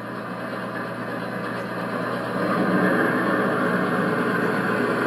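Sound decoder in a PIKO G-scale BR 132 locomotive model playing a running diesel engine sound through the model's small speaker. The sound is steady and has no deep bass, and it grows louder as the locomotive approaches.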